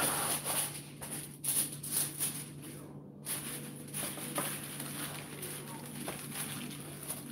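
Aluminium foil sheet rustling and crinkling in irregular bursts as it is pulled from a pop-up box and pressed down over a plate to cover it.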